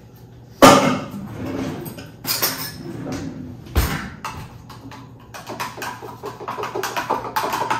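A sharp knock about half a second in and another near four seconds, then a metal spoon stirring a drink in a tall glass, clinking quickly against the sides toward the end.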